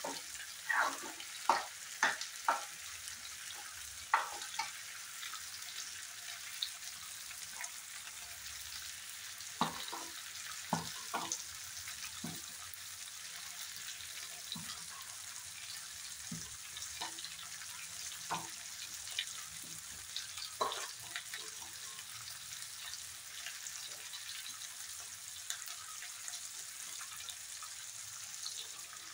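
Scattered clinks and knocks of a serving spoon against steel pots and pans, bunched in the first dozen seconds, over a steady high hiss.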